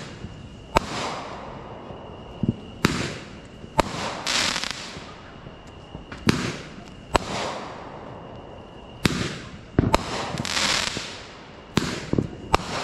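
Fireworks going off: a string of about ten sharp bangs, some in quick pairs, a few of them followed by a long crackling hiss.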